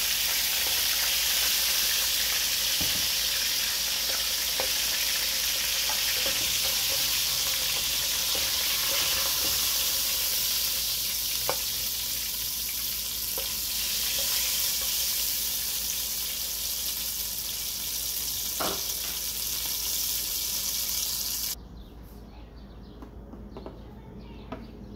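Hot oil sizzling steadily in an aluminium pot as whole pigeons fry, with a few light clicks of a metal spatula against the pot. About 21 seconds in, the sizzle drops suddenly to a much quieter crackle.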